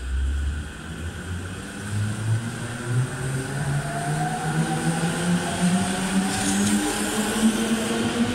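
JR East E231 series 0 electric train pulling away from the platform. It opens with a short low rumble, then its inverter and traction motors give a whine of several tones that climb steadily in pitch as it gains speed.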